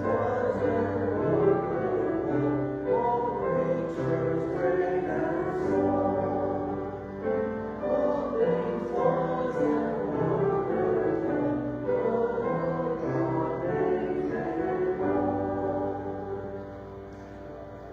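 Church choir singing a hymn with keyboard accompaniment, the music dying away near the end.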